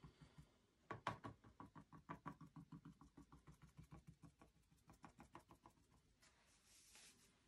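Paintbrush dabbing on a canvas, faint, quick taps at about four or five a second as the bristles stipple leaves, then a brief soft brushing sound near the end.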